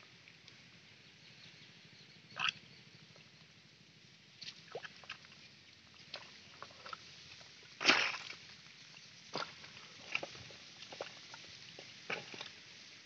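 Hands digging and groping in wet mud and shallow muddy water, making short, scattered squelches and splashes. The loudest comes about eight seconds in.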